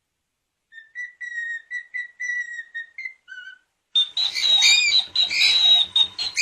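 Cockatiel whistling: a run of short, clear whistled notes starting just under a second in, then from about four seconds in louder, harsher whistles and calls with pitch glides.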